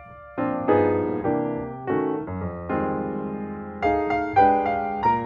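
Background music: a piano playing chords that are struck and ring out, a new chord about every second.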